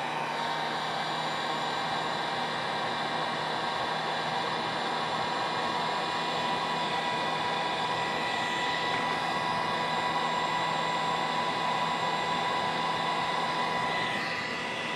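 Harbor Freight electric heat gun running steadily, blowing hot air: a steady rush of air with a motor whine, used to soften the glue holding an earbud's shell together. The sound dips slightly near the end.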